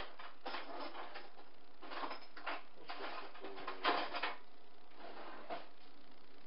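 Wooden spoon stirring thick split pea soup in a stainless-steel stockpot: a series of short, irregular stirring strokes, the last about five and a half seconds in.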